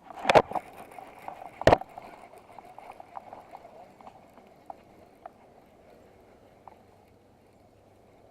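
Two loud knocks about a second and a half apart, then a run of lighter taps and clicks that thin out over the next few seconds.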